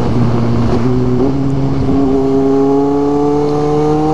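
Kawasaki Z750 motorcycle's inline-four engine running under way, its pitch dipping briefly about a second in, then climbing slowly and steadily as the bike accelerates in gear, over a rush of wind on the helmet camera.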